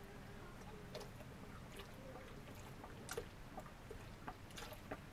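Salty soy sauce pouring and dribbling from a small upturned bottle into a glass bowl of blended spice paste. It is faint, with scattered small splutters and clicks that come more often in the second half.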